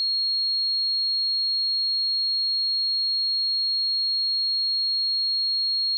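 A pure 4275 Hz sine-wave test tone, one steady high-pitched whistle held at constant pitch and level.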